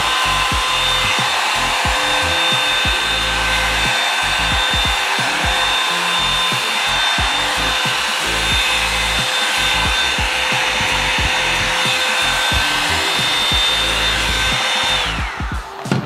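Revlon One Step hair dryer brush running: a steady rush of air over its motor's whine. Near the end it is switched off and the whine falls in pitch as it winds down.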